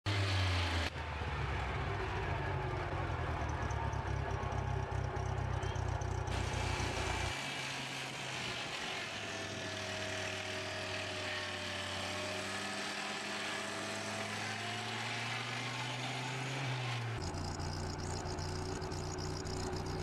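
Circular sawmill running: the electric motor and spinning saw blade hum steadily, changing abruptly a few times. In the middle a tone sags and then rises back.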